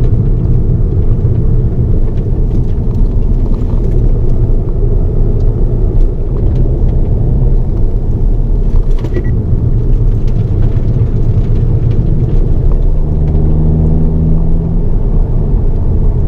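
Hyundai Elantra N's turbocharged 2.0-litre four-cylinder engine and road rumble heard inside the cabin while the car is driven hard on a race circuit. The engine note settles into a steadier tone in the last few seconds.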